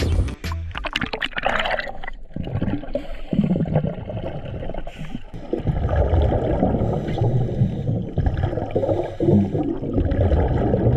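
Water gurgling and sloshing as heard by a camera underwater: muffled and low, with a brighter rush of water in the first two seconds.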